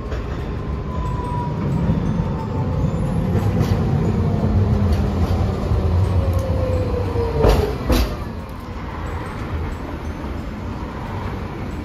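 Green articulated Hiroden low-floor tram slowing as it pulls into a stop: its motor whine falls steadily in pitch over a low rolling rumble, the sign of the tram braking to a halt. Two sharp clacks about half a second apart come near the middle, after which the sound drops to a lower, steady street hum.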